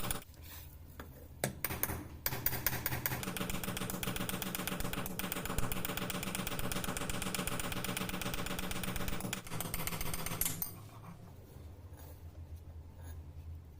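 A machine with a fast, dense rattle starts about two seconds in and stops about ten and a half seconds in, over a low hum. A few sharp knocks come before it, and a quieter low hum stays on after it stops.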